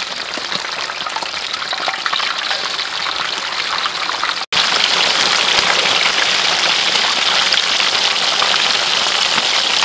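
Fish steaks sizzling and crackling in hot oil in a wok. After a brief drop-out about four and a half seconds in, the sizzle is louder.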